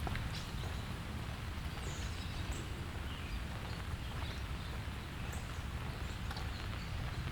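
Steady autumn rain with scattered drip ticks over a low rumble, and a few faint high chirps about two seconds in.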